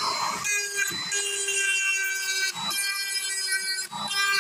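Electric rotary tool spinning a pink mounted grinding stone against rusty steel: a steady motor whine with rasping surges, roughly once a second, as the stone bites in.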